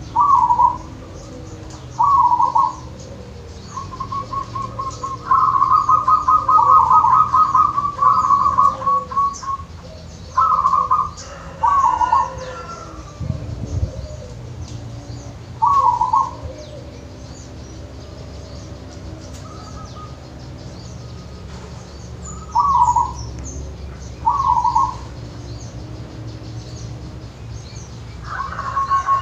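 Zebra dove (perkutut) cooing: short phrases of quick rolling notes repeat every couple of seconds. About five seconds in, the notes run together into one long rolling series, and after a pause the phrases come back near the end.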